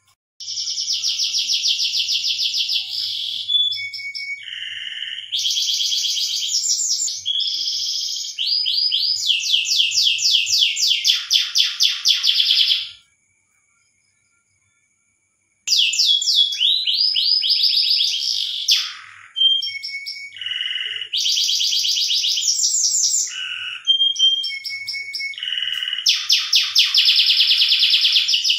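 Domestic canary singing its breeding song: long phrases of rapid trills and rolls, with a dead gap of about three seconds midway.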